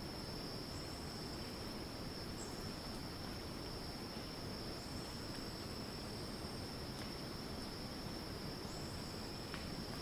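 Rainforest insect drone: a cicada holding one steady high-pitched note, over a low rumble of wind on the microphone. Fainter, higher short calls come in about every four seconds.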